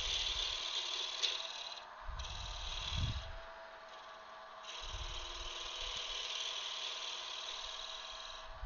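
Wood lathe spinning a small wooden blank while a turning tool cuts into it: a hissing, scraping cut in three passes, broken off briefly about two and four seconds in, over the lathe's steady motor hum.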